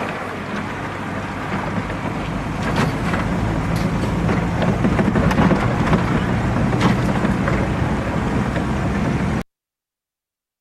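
Toyota Landcruiser HJ75 ute's six-cylinder diesel engine running as it drives along a wet dirt track, heard from inside the cab, with scattered light ticks and taps over it. The sound cuts off suddenly near the end.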